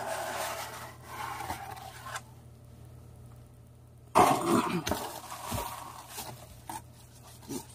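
Paper and cardboard packaging rustling and scraping as it is handled. About four seconds in comes a brief grunt-like voice sound, with more handling noise after it.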